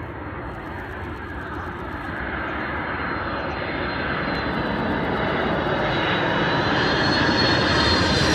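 Four-engined jet airliner on approach passing low overhead: the engine noise grows steadily louder as it nears, with a thin high whine held over it.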